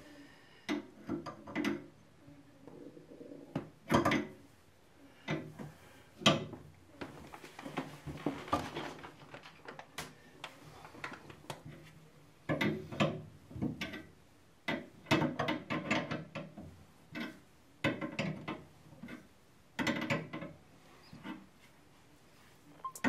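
A spanner working a tight plastic back nut on a toilet fill valve's threaded shank under the cistern: irregular clicks, knocks and short scrapes of metal against plastic.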